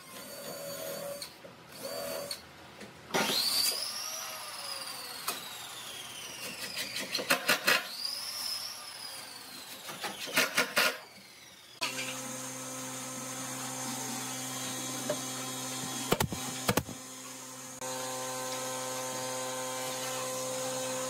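Cordless drill driving screws into pine boards: its motor whine rises and falls twice, with bursts of rapid clicking as the screws go home. About halfway through it gives way to a steady low hum with a couple of sharp knocks.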